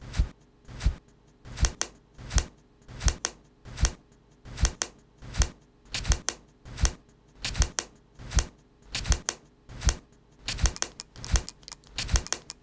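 Makeup sounds looped into a rhythmic beat: a makeup brush swishing in a steady pulse of about one stroke every three quarters of a second, joined about halfway through by a plastic compact case clicking and a perfume atomizer spraying, so the hits come thicker near the end.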